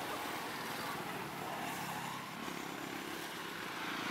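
Motor vehicle engine running nearby, a steady low hum over outdoor background noise that grows a little louder near the end.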